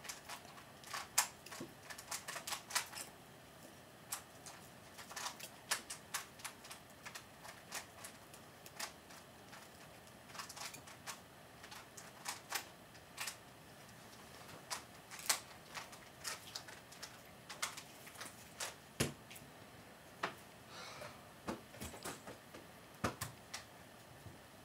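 Small sharp clicks and taps coming irregularly in loose clusters, from hands pushing bent-wire pieces into the balsa wood base of a model trebuchet and handling small parts on the tabletop.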